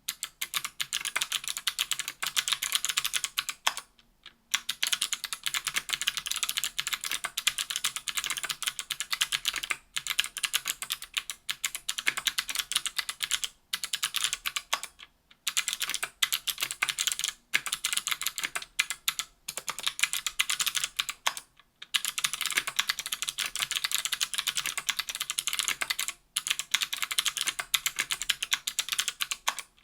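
Fast, continuous typing on a KBDfans Tofu 60% aluminium keyboard with stock NK_ Sherbet 70 g clicky switches, an aluminium plate and GMK keycaps. Each keystroke gives a sharp, bright click, and the typing stops briefly every few seconds.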